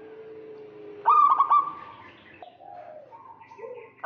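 Zebra dove calling: a loud phrase of quick stuttering coos about a second in, followed by softer coos, with the next loud phrase starting at the very end.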